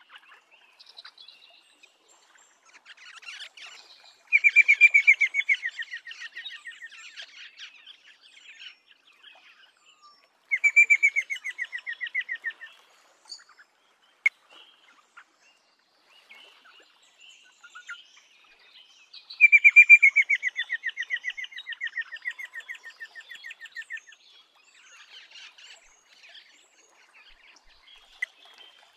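Rosella calling: three long runs of rapid, evenly repeated notes, each starting loud and sliding slightly down in pitch as it fades, with softer chatter between them. A single sharp click about halfway through.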